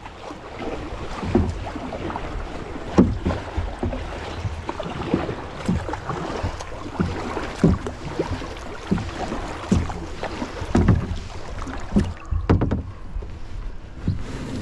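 Kayak paddle strokes dipping and splashing in the water, about one a second, with wind noise on the microphone.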